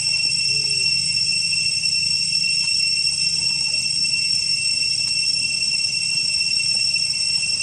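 Steady high-pitched insect drone on two constant pitches, unbroken, with a low outdoor rumble underneath.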